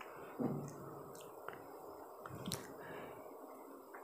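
Faint handling noise of a printed circuit board being turned in the hands while component leads are worked through its holes: a few small clicks and soft knocks, the strongest about half a second in and another near two and a half seconds.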